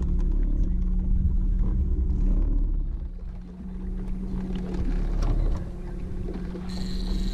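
Boat motor running steadily with a low rumble, dipping in loudness briefly midway; a high steady tone joins near the end.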